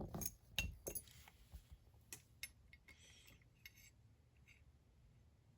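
Small steel parts of an MK18 bolt carrier group clinking and clicking as they are handled: a cluster of sharp clicks in the first second, then fainter scattered taps and light metallic clinks.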